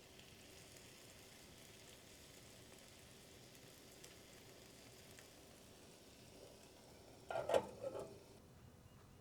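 Faint sizzling of food cooking over heat, with a short louder sound about seven and a half seconds in.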